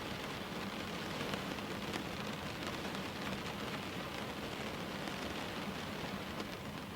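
Steady rainfall, a dense patter of drops with fine individual ticks of drops striking near the window.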